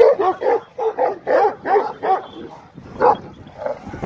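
Kangal shepherd dog barking: a quick run of barks, about three or four a second, for a couple of seconds, then two more single barks.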